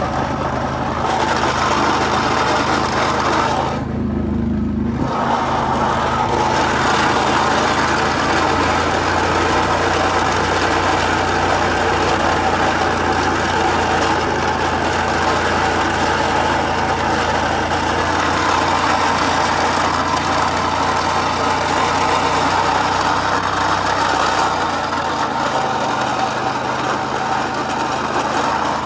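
Honda Rancher ATV's single-cylinder engine running steadily as the four-wheeler drives along pushing a snow plow, with a dense rush of noise over it. The engine note shifts briefly about four seconds in.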